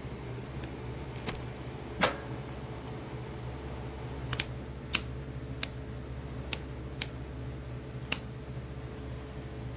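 Scattered sharp clicks, about eight of them at irregular spacing, the loudest about two seconds in, over a steady low hum.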